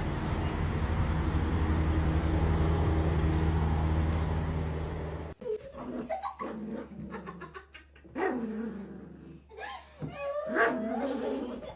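A steady low hum for about the first five seconds, then, after an abrupt change, a dog whining and yipping in short cries that slide up and down in pitch.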